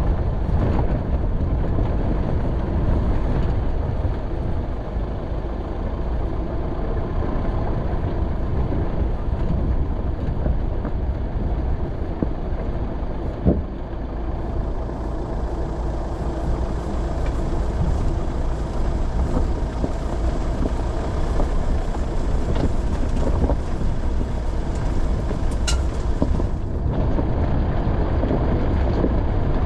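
Off-road vehicle driving on a rough mountain track: steady engine and road noise, with one sharp knock about halfway through.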